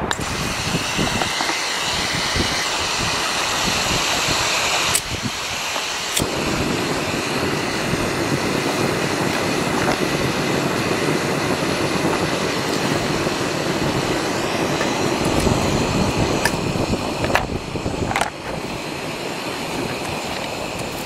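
Jetboil canister gas stove: gas hisses from the burner and catches from a lighter about six seconds in, then the burner runs with a steady rushing sound. A few clicks come near the end as the cooking cup is fitted onto the burner, and the sound is lower afterwards.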